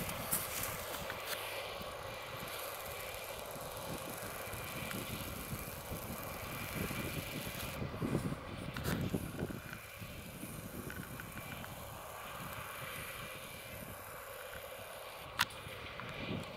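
Caterpillar Challenger MT865C tracked tractor pulling a Väderstad TopDown 900 cultivator through stubble, heard at a distance as a steady engine hum under load. Wind gusts hit the microphone about halfway through, and there is one sharp click near the end.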